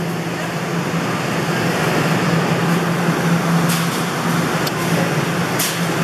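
A steady low machine hum under a broad hiss, with three short sharp clicks in the second half.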